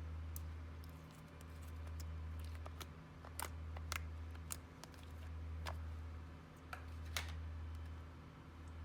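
Slime being squeezed and mixed by hand, giving a scattering of sharp little clicks and pops as air pockets burst, under a low hum that swells and fades about every second and a half.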